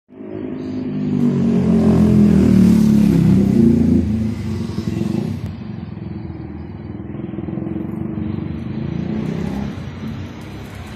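Isuzu vehicle's engine running and revved, the revs rising over the first few seconds and then dropping back, with a second, smaller rise in revs near the end.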